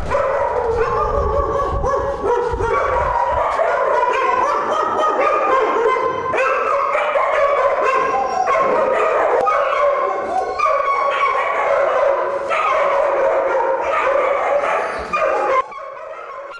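Many caged dogs in a shelter barking at once, a continuous loud din of overlapping voices that drops away sharply near the end.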